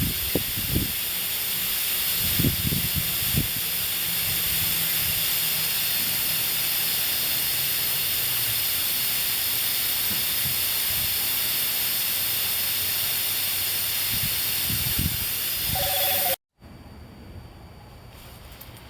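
Air hissing steadily out of a truck tire's valve stem as the valve core is held pressed in to deflate the tire. The hiss cuts off abruptly near the end.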